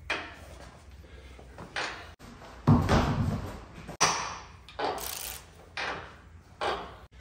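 Hand wrench working a rusty leaf-spring hanger bolt on a Chevy squarebody truck frame: a series of irregular metallic clanks and knocks, the heaviest about three seconds in.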